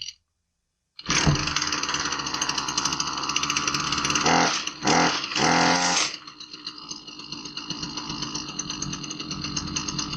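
Husqvarna 326LS string trimmer's two-stroke engine running. It cuts in suddenly about a second in and runs fast and loud, with a few quick changes in speed between about four and six seconds. It then drops to a lower, steadier run.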